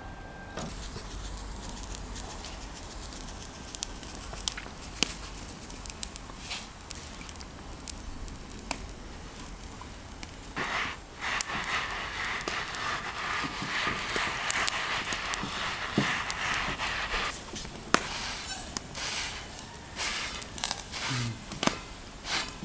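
Wood fire crackling with scattered sharp pops. About halfway through, coarse salt is scrubbed by hand across a steel saj griddle in a long rasping stretch, which is the loudest part, then in shorter wiping strokes: the griddle is being salt-scoured clean before cooking.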